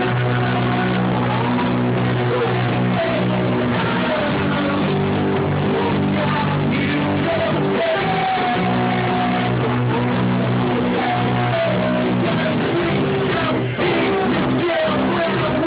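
A small live band plays rock music, with guitar and a singing voice over sustained chords. The music dips briefly near the end.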